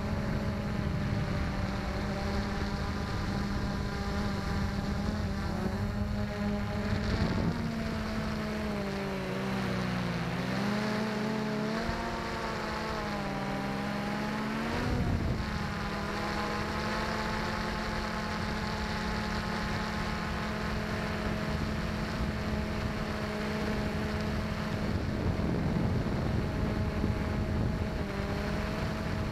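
XK X380 quadcopter's electric motors and propellers humming steadily, heard from the drone's own camera, with wind hiss on the microphone. About a third of the way in the motor pitch drops and wavers up and down for several seconds as the motors change speed, then settles back to a steady hum.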